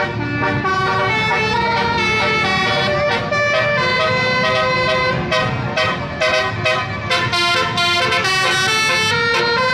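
Bus telolet horn, a multi-tone air horn, playing a tune: held notes that step up and down one after another, with a low rumble underneath.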